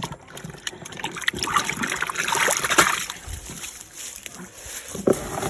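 Water splashing and sloshing irregularly, with scattered small knocks, loudest about two seconds in.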